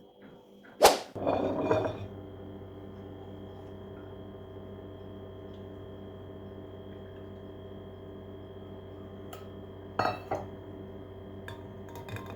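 A sharp knock about a second in, followed by the clatter of dishes being handled, and again about ten seconds in; a steady hum sets in just after the first knock.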